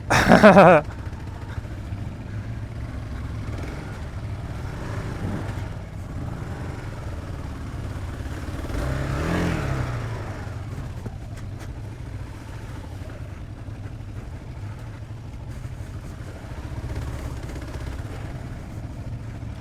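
Single-cylinder dual-sport motorcycle engine running steadily under way on a muddy trail. About halfway through it revs up and back down once.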